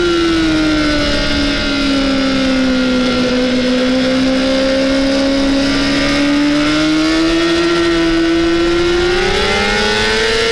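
Honda CBR600RR inline-four engine at high revs, heard onboard with wind rush: the revs ease off slightly and hold steady through a long corner, then climb steadily over the last few seconds.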